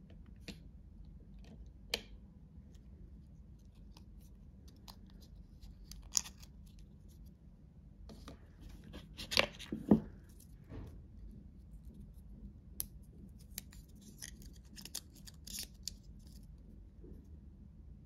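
Hands handling small plastic accessories and cardboard packaging: scattered light clicks, taps and rustles, with the loudest knocks about nine to ten seconds in and a run of small ticks near the end.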